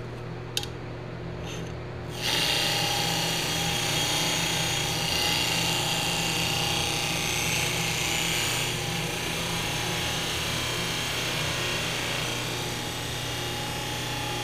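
Bench buffer running with a steady hum. About two seconds in, stainless steel trim is pressed against the spinning buffing wheel, adding a loud, even rubbing hiss that carries on to the end, brightest for the first several seconds.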